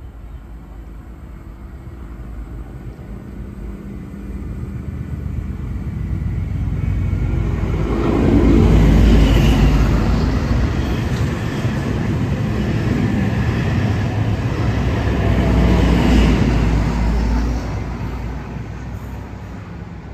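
Sydney Trains H set (OSCAR) electric multiple unit passing along the platform with a rumbling of wheels on rail. It builds up, is loudest twice as the carriages go by, and fades as the train draws away.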